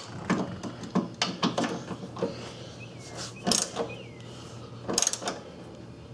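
A wrench tightening two 15 mm nuts on a metal U-strap: irregular metallic clicks and clanks, some in quick runs.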